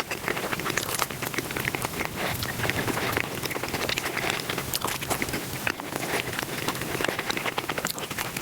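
Close-miked eating sounds played at five times normal speed: chewing, biting and crunching food, sped up into a dense, continuous crackle of tiny clicks that sounds almost like rain.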